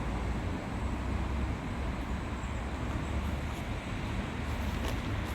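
Steady low rumble of outdoor background noise, with a few faint clicks near the end.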